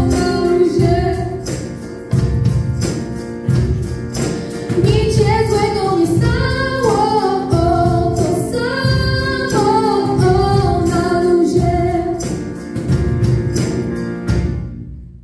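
Two girls singing a song into microphones, backed by piano and percussion with a steady beat. The song ends near the end.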